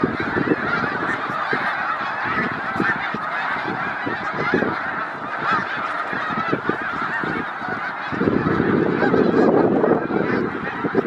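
A large flock of snow geese calling, a dense continuous chorus of overlapping honks. A low rumbling noise underneath grows louder about eight seconds in.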